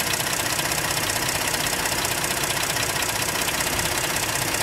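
Ford F-150's 3.5 L EcoBoost twin-turbo V6 idling steadily with the hood open, just after an oil change, with a fast, even ticking over the engine hum.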